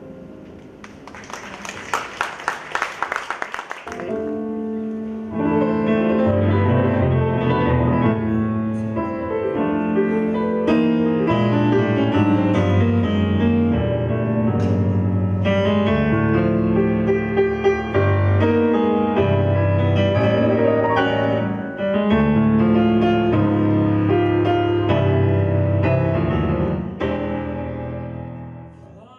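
Brief applause for about three seconds, then solo piano music playing until it cuts off abruptly.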